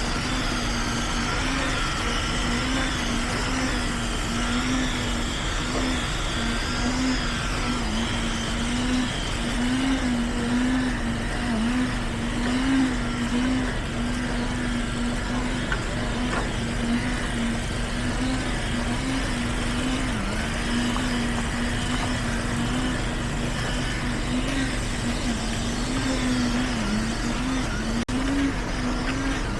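Heavy construction machine's engine running steadily, a continuous drone that wavers slightly in pitch.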